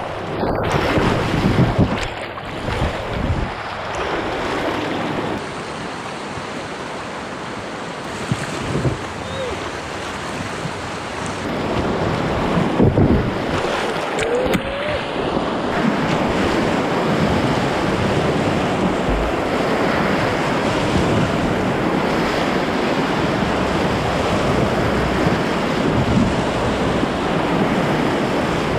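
Whitewater rapids rushing and splashing close around a kayak, with water breaking over the microphone and wind noise on it. A few louder splashes come in the first few seconds and again around halfway, after which the rush grows louder and stays steady.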